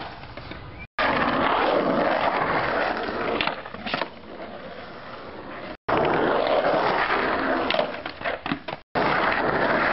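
Skateboard wheels rolling loudly over rough asphalt and the board sliding on a concrete ledge, with several sharp clacks of the board hitting the ledge and ground. The sound drops out briefly three times where short takes are cut together.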